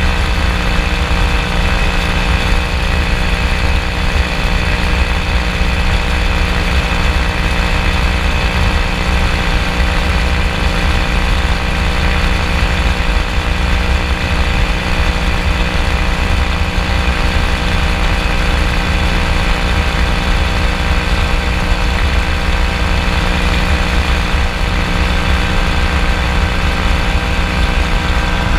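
Kolb FireFly ultralight's engine and pusher propeller running in flight: a steady drone that holds one pitch throughout.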